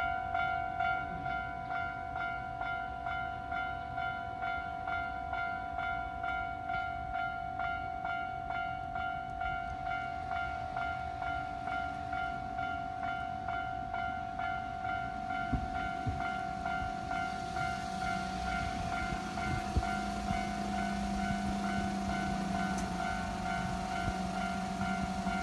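Japanese level-crossing warning bell ringing in a fast, even, repeating rhythm. About two-thirds of the way in a train rumbles over the crossing with a low hum and a few sharp wheel clacks, while the bell keeps ringing.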